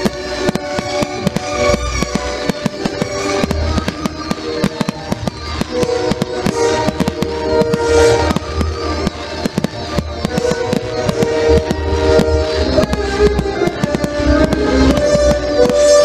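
Aerial fireworks bursting overhead: a dense run of bangs and crackling throughout, over music playing with held melody notes.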